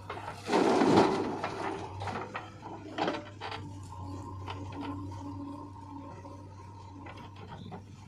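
Diesel machinery running with a steady low hum, a loud rushing clatter about half a second in, and scattered knocks and rattles afterwards.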